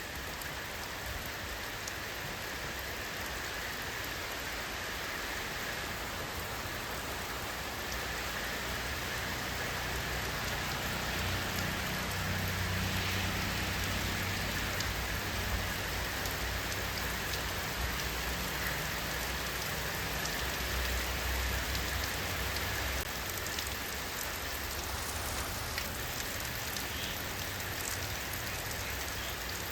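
Steady rainfall, a dense even patter. A low rumble swells in underneath through the middle, then fades.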